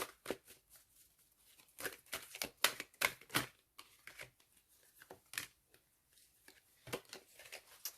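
Tarot cards being handled: a scatter of soft flicks, taps and paper rustles as cards are shuffled, drawn and laid down, busiest about two to three and a half seconds in.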